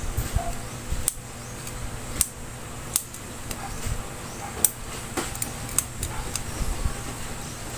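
A series of sharp, irregular plastic clicks from a blood-glucose lancing pen being handled and adjusted in the hands, over low handling noise.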